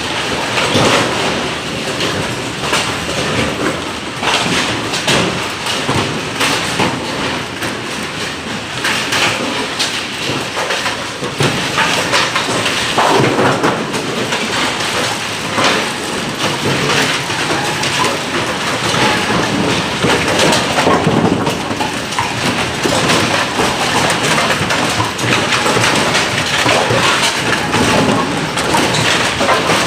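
Bowling pinsetter machinery running: a continuous rumble with a steady clatter of knocks and clacks from the mechanism and pins.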